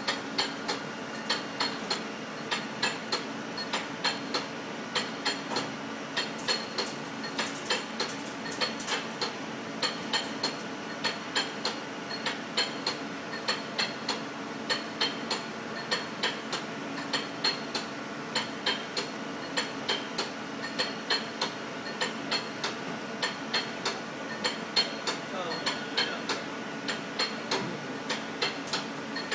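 Tachi CNC lathe running with its chuck spinning: a steady mechanical hum with irregular sharp metallic ticks, about two or three a second.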